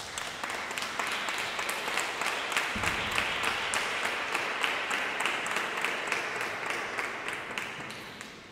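Small audience applauding, swelling over the first second and dying away near the end.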